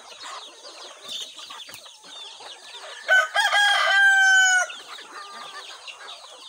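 A rooster crows once, about three seconds in, in a loud call of about a second and a half that holds its pitch and then cuts off. Throughout, a flock of chickens clucks and calls while feeding.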